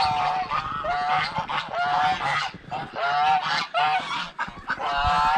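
Domestic geese honking over and over, one call after another about every half second.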